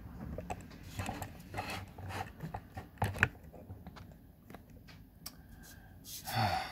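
Handling noise of a camera on a tripod being set back up: scattered clicks, knocks and rubbing right at the microphone, with a brief louder sound near the end.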